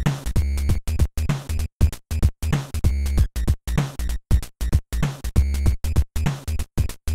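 Electronic background music with a drum-machine beat and heavy bass, broken by frequent short, sharp gaps.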